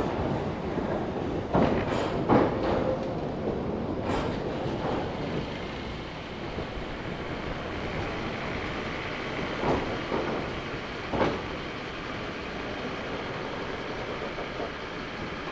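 Ex-London Underground 1938 Tube stock Class 483 electric train running past and drawing away, its wheels knocking over rail joints. The rumble fades as it goes.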